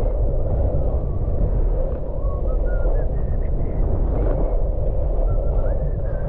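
Wind rushing over the microphone of a skier moving downhill, a steady low rumble, with the hiss of skis running over packed snow and a few faint short squeaks.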